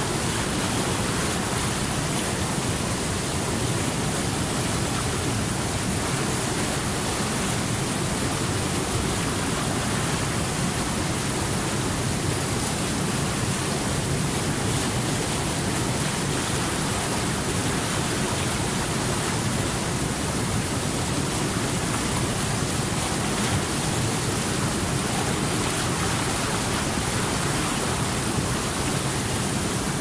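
Fast mountain river rushing through whitewater rapids over boulders, a steady unbroken rush of churning water.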